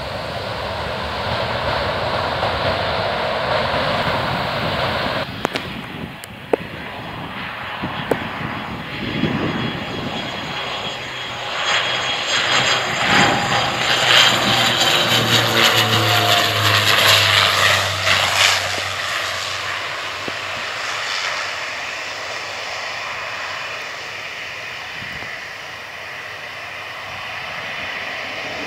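Twin-turboprop airliner's engines running as it passes along the runway at speed, growing loud with a propeller hum and a turbine whine that falls in pitch as it goes by, then fading away.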